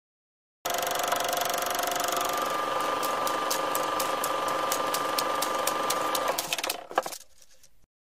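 Intro sound effect of a running machine: a steady mechanical whirr with a held tone, joined by rapid even clicks about six a second. It winds down with a sharp click near the end, then cuts off.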